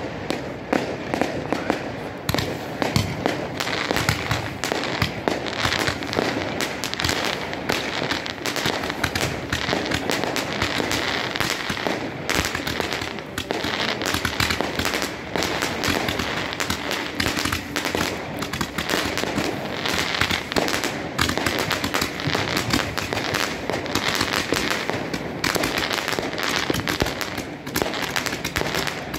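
Fireworks going off without a break: a dense, rapid crackle of many small bangs and cracks, like firecrackers or a crackling battery.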